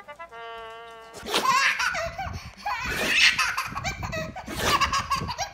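A baby laughing hard in repeated bursts of belly laughs, starting about a second in. It follows a brief held musical note.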